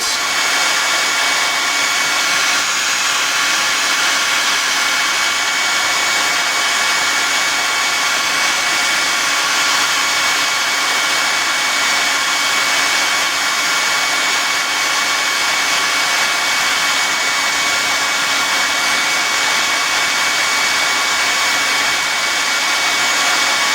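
Hot air gun running steadily, a loud even rush of blown air with a faint high steady whine, heating a solder-seal heat-shrink connector so the solder melts into the wires.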